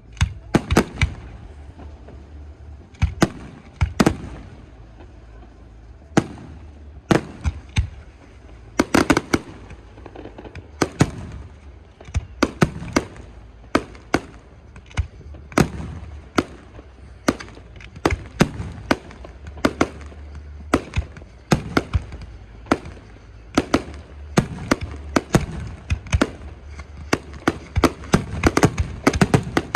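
Fireworks display: aerial shells bursting in rapid, irregular succession, sharp bangs with echoing tails, growing denser near the end.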